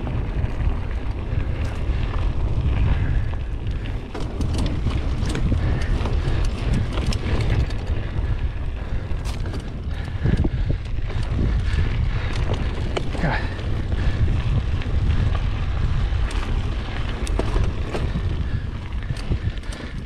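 Wind buffeting the microphone of a mountain bike's rider on a fast descent, with the bike rattling and clattering over rough ground in frequent short clicks and knocks.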